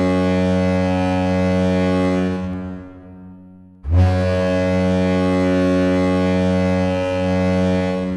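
San Jose Sharks goal horn sounding in long, deep blasts of about four seconds each. One blast fades out about two and a half seconds in, and the next starts about a second later and runs almost to the end.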